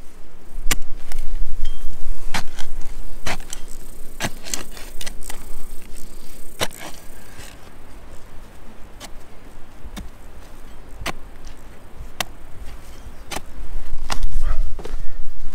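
A series of sharp knocks or clicks, about one a second, louder in the first half, over a low rumble that swells at the start and again near the end.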